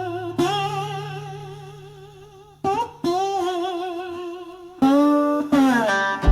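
Slow Delta blues music: a long wordless melody line with wide, wavering vibrato, hummed or played on slide guitar, over low held notes. Plucked guitar notes come in near the end.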